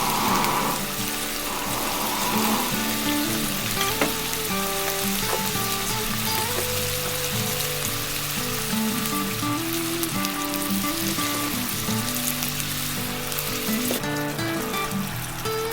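Food sizzling and spitting in hot fat over a charcoal grill, a steady dense hiss with one sharp tick about four seconds in, under soft background music.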